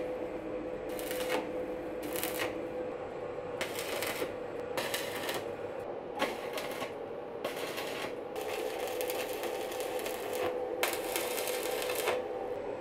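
Arc welding on a steel barbecue grill: the electrode arc crackles and sizzles in a string of short bursts, most under a second, with a longer run of about two seconds past the middle, as tack and short welds are laid down. A steady hum runs underneath.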